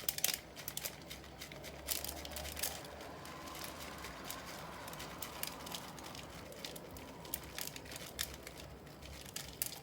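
Irregular small clicks, taps and rustling as beeswax is scooped and dropped into a container for weighing.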